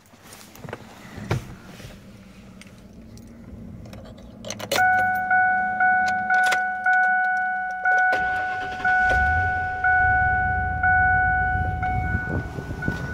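A car's electronic warning chime dinging over and over, about one and a half dings a second, starting about five seconds in, after keys and handling rattle. About halfway through, a low rumble joins underneath.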